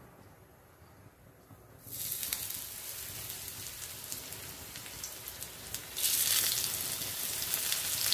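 Semolina-and-rice-flour-coated fish slices sizzling in hot oil on a non-stick tawa. The sizzle starts suddenly about two seconds in as the first slice goes into the oil, then jumps louder about six seconds in as a second slice is added.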